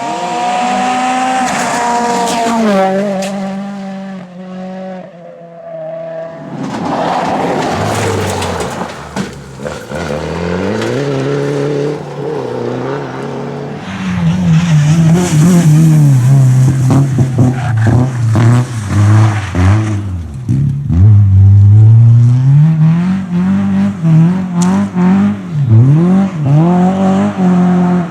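Rally cars at speed on a stage, one after another, engines revving hard with pitch rising and dropping sharply through gear changes and lifts. The loudest car comes in about halfway and keeps revving up and down.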